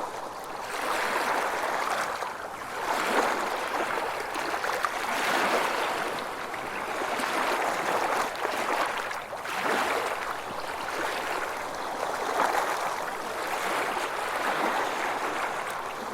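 Rushing, water-like noise that swells and fades about every two seconds, with no deep drum strikes.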